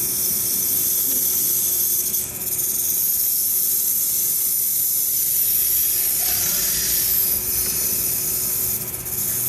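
Steady hissing, broken briefly about two seconds in and again near the end.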